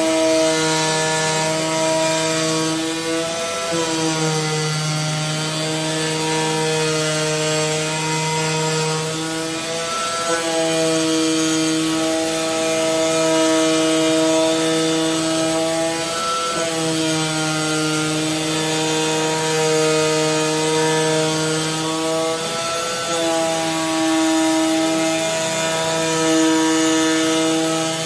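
The cutting tool of a CNC flatbed cutting plotter running steadily as it cuts graphite gasket sheet, a buzzing hum. About every six and a half seconds it breaks off briefly and comes back at a slightly changed pitch.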